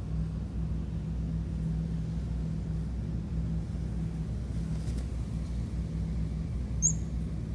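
A steady low mechanical hum, like a nearby motor or engine running. A single brief high chirp comes near the end.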